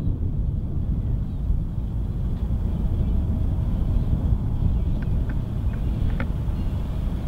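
Steady low rumble of wind on the microphone over the faint drone of a distant light aircraft's engine as the plane rolls along the runway, with a few light clicks about five to six seconds in.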